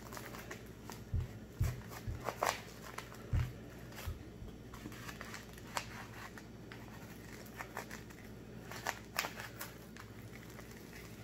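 A knife scraping and prying at tightly packed powdered starch inside its paper box, with crinkling of the packaging. Irregular scrapes and clicks, with a few soft knocks in the first few seconds.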